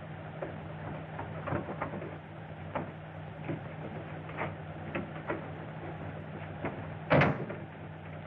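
A series of irregular knocks and clicks, with one much louder bang about seven seconds in, over the steady hum of an early sound-film soundtrack.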